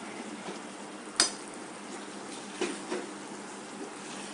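A spoon knocking against a metal pan while a curry is stirred: one sharp clink about a second in, the loudest sound, and two lighter knocks shortly before three seconds. The curry is simmering steadily underneath.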